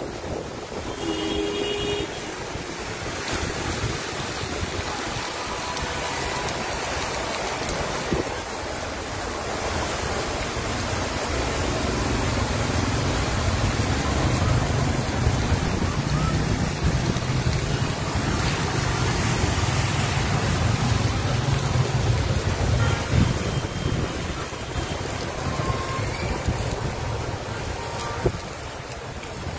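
Heavy rain and floodwater rushing along a street, with cars driving through the water. A vehicle's engine and tyres grow louder from about a third of the way in and fade again near the end.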